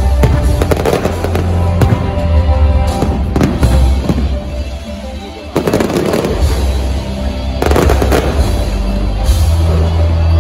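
Fireworks bursting in rapid succession: repeated bangs and low thumps with crackling, and music playing at the same time. The sound dips just before the middle and cuts back in suddenly.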